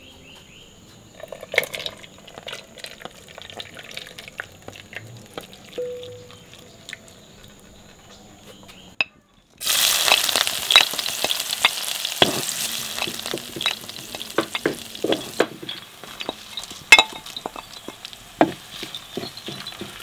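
Small dried fish frying in oil in a clay pot: loud, crackling sizzle that begins abruptly about halfway through, with sharp clicks and the clink of a spoon. Before it, only faint scattered clicks.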